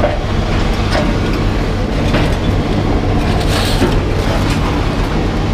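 Engine of a heavy lifting machine running steadily with a low drone, with a few light knocks.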